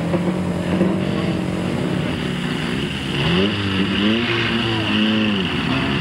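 Trials car engine running steadily, then revved up and down several times in quick succession from about halfway through.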